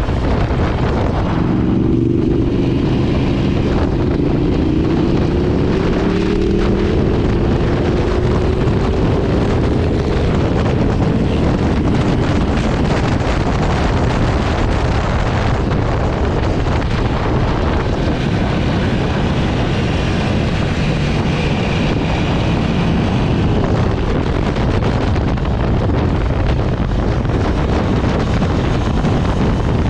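Aprilia RSV4 RF's V4 engine at track speed, under heavy wind rush on the microphone. The engine note climbs steadily from about a second in to about eleven seconds in as the revs rise, then is mostly buried under the wind, rising again faintly near the end.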